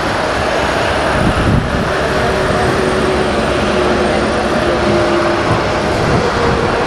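Steady running noise of a moving electric train heard from inside the coach, with a faint hum of held motor tones and a single low thump about one and a half seconds in.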